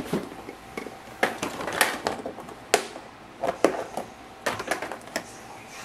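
Irregular clicks and rustles of craft supplies being handled on a desk, about ten sharp clicks spread unevenly, as a pack of foam stamping dimensionals is fetched.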